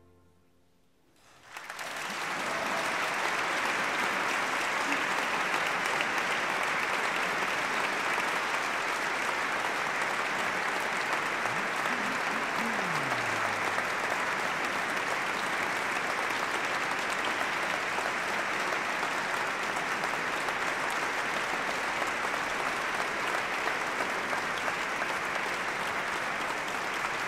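A brief hush after the music ends, then audience applause breaking out about a second and a half in and continuing steadily.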